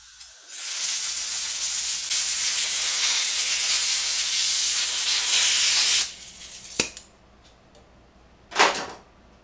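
Compressed-air blow gun hissing as it blows out small carburetor parts fresh from the ultrasonic cleaner: one long blast of about five and a half seconds, then a click and a short second blast near the end.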